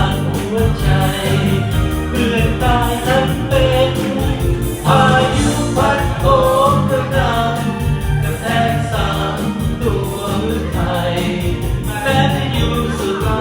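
A song with sung vocals over a band backing with a steady beat.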